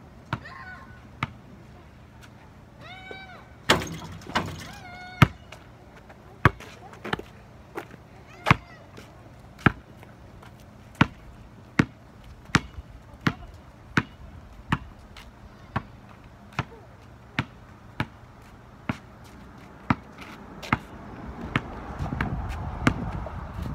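A basketball being dribbled on asphalt, a sharp bounce about every three-quarters of a second. A short high voice call comes about three seconds in, with the loudest bounces just after it, and a rushing noise rises near the end.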